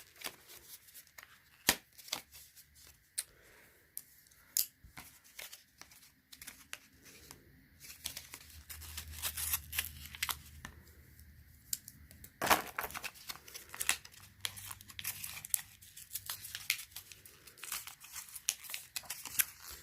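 Small packaging being torn open by hand, with crinkling rustles and scattered sharp clicks.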